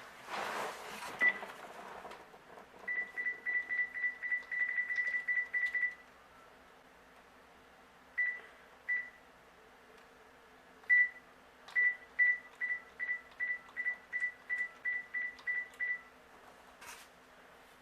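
Telephone keypad beeping as buttons are pressed to dial a call: short single-pitch key beeps, a quick run of about a dozen, then three spaced beeps, then another quick run of about a dozen.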